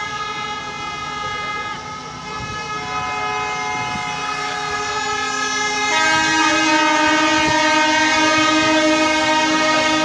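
Many horns blowing at once in a marching crowd: long steady blasts at several different pitches overlapping, swelling louder about six seconds in.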